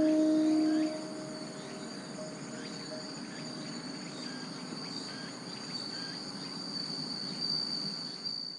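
The last note of the outdoor loudspeaker chime rings out and fades within the first second. After it comes a steady high chirring of insects, crickets among them, with faint short chirps over it, until the audio cuts off at the end.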